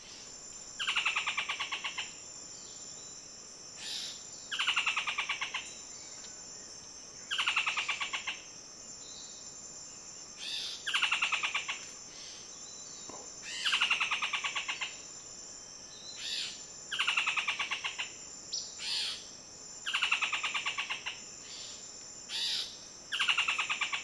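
Buff-throated foliage-gleaner singing: a fast rattling series of notes that falls in pitch, lasting about a second and repeated about every three seconds, eight songs in all, with a few shorter calls between. A steady high insect drone runs underneath.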